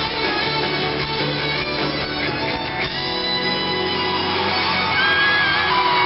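Live pop-rock band playing, with strummed electric guitars; about halfway through, the music turns to long held notes.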